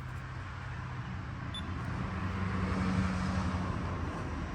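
A low mechanical hum that swells to a peak about three seconds in and then eases off.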